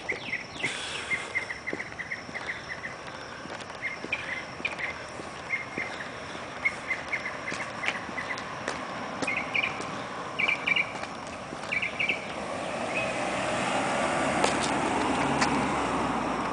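Crickets chirping in short, repeated trains of pulses. About twelve seconds in, a passing car's tyre and engine noise swells up and becomes the loudest sound.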